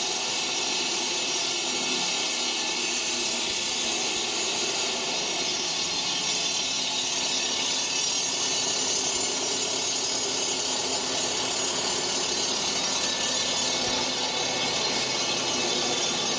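Electric concrete groove-cutting machine running, its water-fed blade grinding a groove into a concrete floor: a steady, even, high-pitched hiss and whine.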